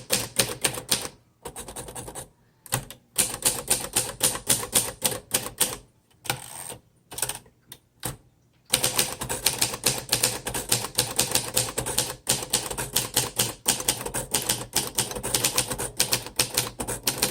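A 1951 Royal Quiet De Luxe manual typewriter being typed on: rapid clacks of typebars striking the platen in fast runs, broken by a few brief pauses.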